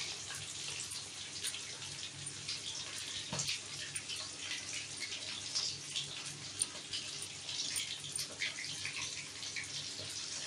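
Coated chicken drumsticks deep-frying in hot oil: a steady sizzle dotted with quick crackles and pops.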